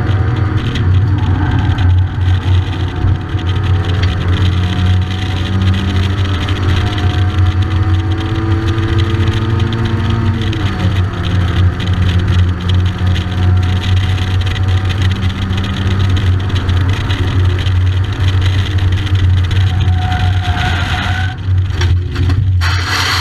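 Race car engine at hard throttle, heard from inside the cockpit, its pitch climbing and then dropping sharply at a gear change about ten seconds in before climbing again. Near the end the engine note breaks up and a rush of noise starts as the car leaves the track.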